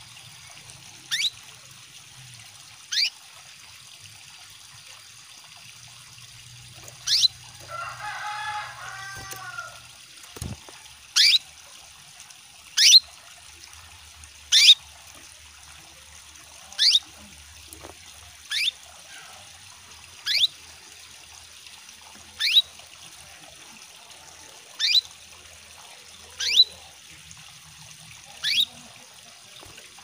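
Female canary in breeding condition calling to males: short high chirps repeated roughly every two seconds over the steady trickle of running water. About eight seconds in there is a brief burst of lower twittering.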